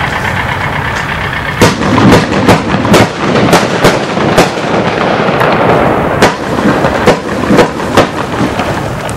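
30 mm fireworks cake (a 156-shot compound battery) firing: from about one and a half seconds in, loud sharp shots come one to three a second as comets launch and burst, over a dense continuous hiss.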